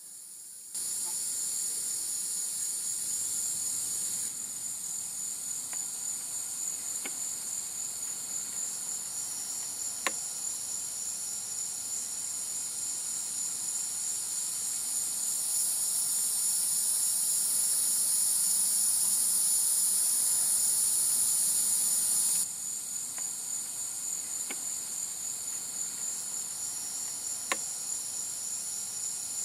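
Steady high-pitched chorus of night insects, with a few faint clicks. Its level steps abruptly up and down a few times.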